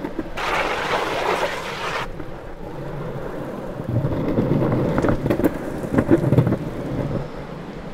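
Longboard wheels rolling over rough, patched tarmac and concrete: a low rumble with scattered clacks over cracks and seams, heaviest in the second half. Near the start a scraping hiss runs for about a second and a half and cuts off abruptly.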